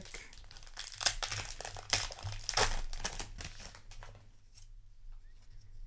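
Plastic trading-card booster pack wrapper being torn open and crinkled by hand: several crackling rips in the first three seconds, then only faint handling.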